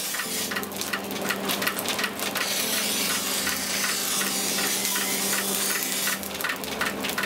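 Steel blade being ground on a motor-driven grinding wheel: a steady hiss and rasp of metal against the abrasive stone over a steady hum from the machine.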